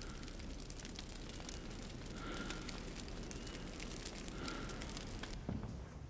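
Burning candles crackling and sputtering softly in irregular small clicks over a low steady rustle.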